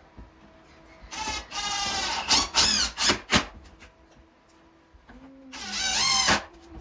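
Power drill run in several short trigger bursts, its motor whine speeding up and slowing down with each pull. There is a longer steady run about a second in, quick stabs around three seconds, and a final burst near the end.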